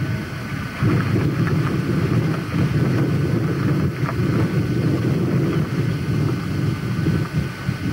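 Motor vehicle engines running on a road, a steady rumble with wind noise on the microphone.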